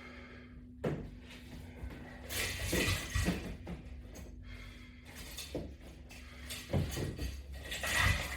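Irregular soft knocks and rustling hiss from a person doing strap-anchored sit-ups, with a steady low hum underneath.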